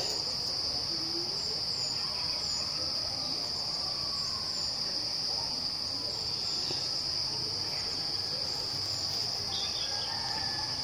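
A steady, shrill chorus of insects, one unbroken high tone that goes on without pause.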